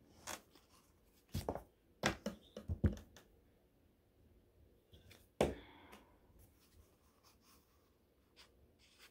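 Quiet handling of a cardboard tube, construction paper and a glue stick: scattered taps, rustles and the soft rub of the glue stick. The loudest is a knock with a short rustle about five and a half seconds in.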